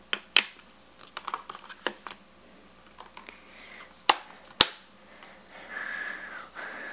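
Plastic Blu-ray cases being handled: clicks as a disc is pressed onto its centre hub, then small ticks. About four seconds in come two loud, sharp plastic clicks half a second apart as the case is shut and moved.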